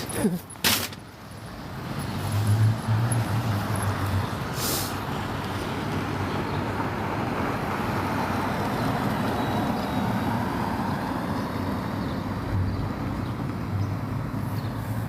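Road traffic passing: vehicles running by with steady tyre and engine noise that builds about two seconds in and then holds. A short sharp click near the start.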